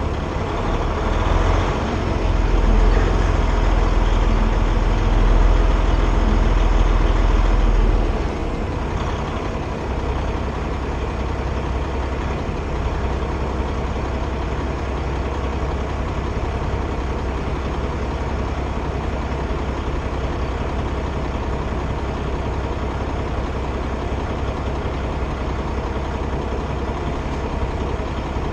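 Semi truck's diesel engine running at low speed, louder for about the first eight seconds, then settling back to a steady low rumble near idle.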